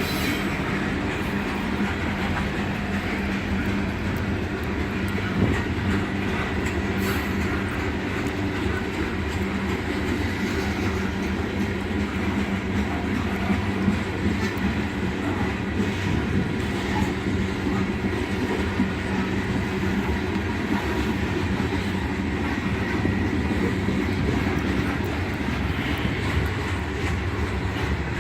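A freight unit train of hopper cars rolling past, with a steady rumble of wheels on the rails and a running clickety-clack as the wheels cross the rail joints.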